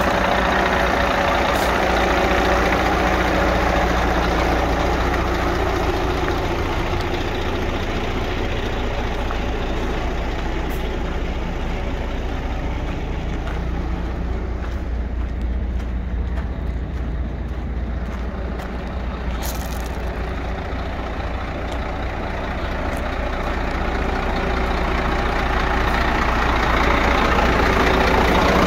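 Scania P114 dump truck's 11-litre inline-six diesel idling steadily, quieter in the middle and louder again near the end.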